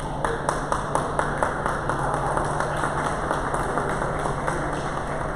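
Hand-clapping, a steady run of about four claps a second that is loudest at first and fades out near the end, over a steady low hum.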